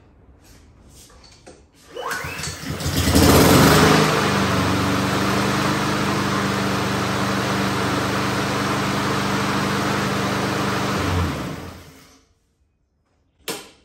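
Honda HRN216 lawnmower's single-cylinder four-stroke engine pull-started with no choke or primer bulb, catching on the first pull, revving up and then running steadily for about seven seconds. It dies away when the blade-brake bail on the handle is let go. A single short knock follows near the end.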